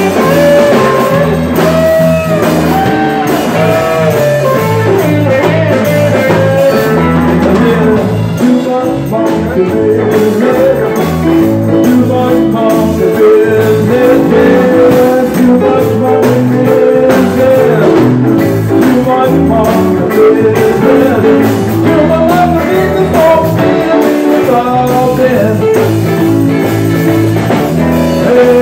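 Live band playing a blues-flavoured rock and roll tune, with an acoustic-electric guitar strummed and picked over a steady low end.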